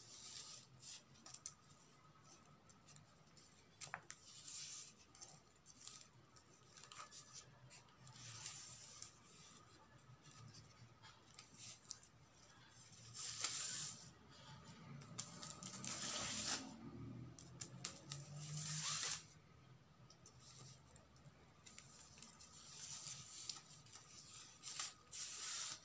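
Satin ribbon rustling and swishing as it is wound around a wicker basket handle, with light handling noise from the basket. It comes in faint, irregular rustles, the loudest a little past halfway through.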